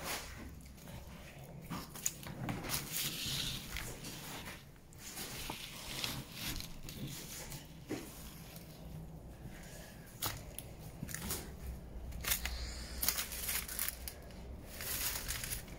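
Footsteps crunching and crackling through dry fallen leaves and broken debris, in irregular steps throughout.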